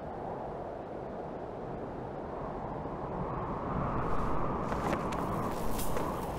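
Steady rushing wind, swelling a little after about three seconds, with a few short sharp snaps near the end.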